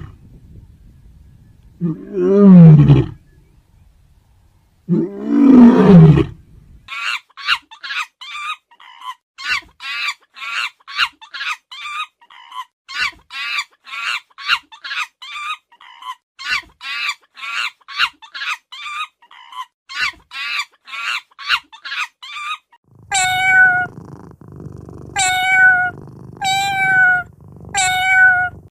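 Male lions roaring twice, each roar deep and long. Then comes a long run of short high-pitched chirping calls from a young macaque, about three a second. Near the end a kitten meows four times.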